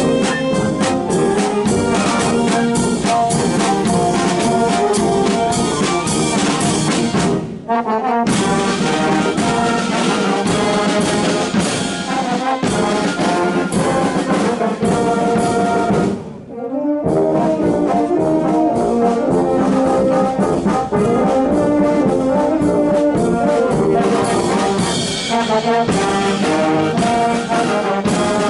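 Filarmónica wind band playing, led by brass: trombones and trumpets. The music breaks off briefly twice, about a third and about two thirds of the way through.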